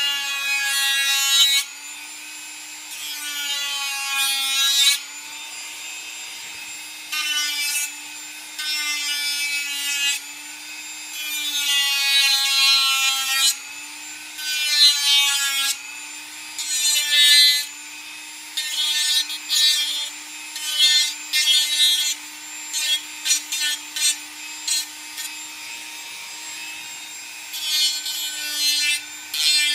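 Dremel rotary tool running with a steady high motor whine while its sanding attachment is pressed against the edge of a Kydex sheath to round the edges. Each touch adds a harsh, squealing rasp: several longer passes in the first half, then a quick run of short touches.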